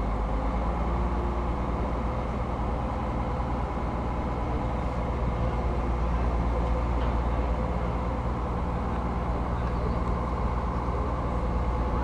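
Heavy diesel engine of a mobile crane truck running steadily under load, driving the crane as it lifts a bus.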